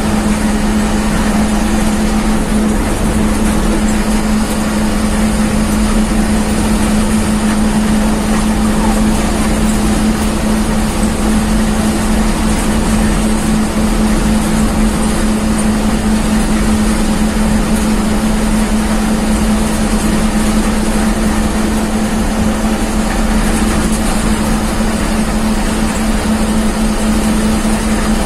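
Bus engine running at steady highway speed, heard from inside the front of the bus: an unbroken low drone over road and wind noise, holding steady throughout.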